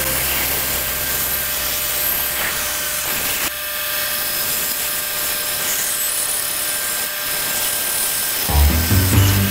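Background music over a band saw cutting through a block of wood. Low notes of the music come back strongly near the end.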